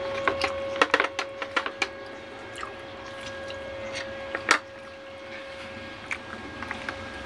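Salted fish cracking and crunching as it is broken apart by hand and chewed: a quick run of sharp snaps in the first two seconds, a loud one about four and a half seconds in, and a few small ones near the end, over a steady hum.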